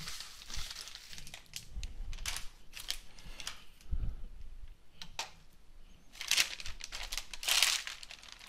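Metallised anti-static bag crinkling as it is spread out and handled, loudest in two longer crinkles near the end, with scattered light clicks and a soft knock as the bare graphics card and its heatsink are set down.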